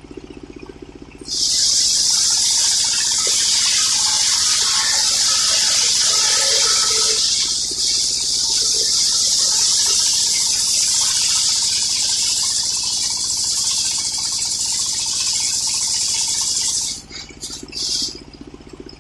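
Homemade circular sawmill blade cutting through an old coconut log: a loud, steady, high hissing cut starting about a second in. It breaks off near the end in a few short bursts as the cut finishes, and the saw's engine idling is heard again.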